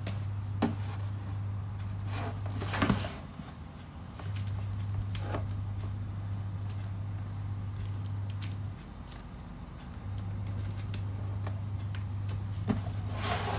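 Hands handling a laptop and its plugged-in cable, with scattered clicks and short rustles, the loudest about three seconds in and near the end. A low steady hum runs under them and cuts out twice.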